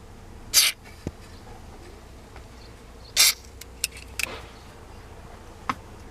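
Two short hissing squirts of a WD-40 aerosol spray, about half a second in and about three seconds in, lubricating the dry, squeaking steering-column stalk-switch bushing. Light plastic clicks of the parts being handled follow.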